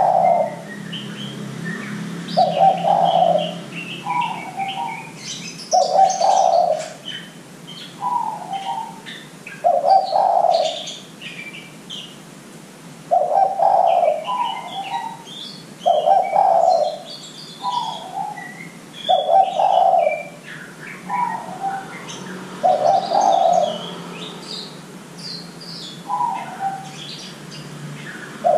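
Spotted dove (derkuku) cooing over and over. Each call is a deep coo followed by a shorter, slightly higher note, and the calls come about every three seconds, with one longer pause near the end. Small birds chirp and twitter in the background.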